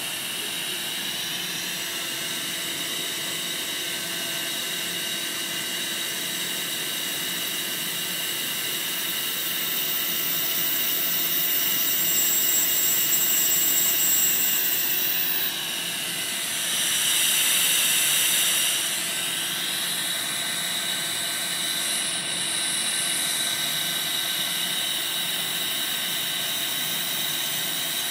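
Ultrasonic CNC spindle cutting quartz crystal: a steady machine whine made of several high tones. It grows louder for a few seconds in the middle, then gives a short noisy swell about two-thirds of the way through before settling back to the steady whine.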